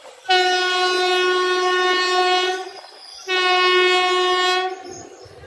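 Horn of a WAP-4 electric locomotive sounding two steady single-pitch blasts, a long one of about two seconds and then a shorter one.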